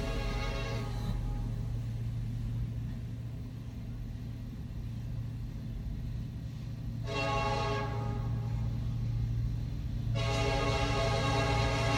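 Train horn sounding over a steady low rumble: one short blast about seven seconds in, then a long blast starting near the end.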